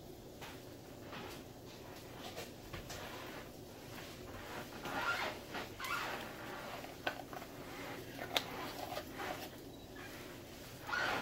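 Kitchen handling sounds while cooking: intermittent scraping and rustling with a few light clicks and knocks, busiest about halfway through and again near the end.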